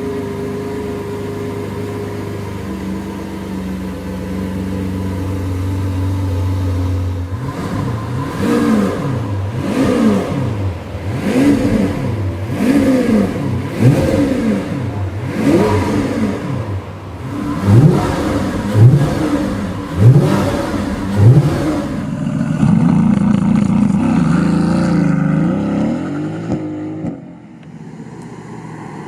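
A sports car's engine idling, then revved repeatedly in short throttle blips, the pitch rising and falling with each one, before settling into a steadier run that drops away near the end.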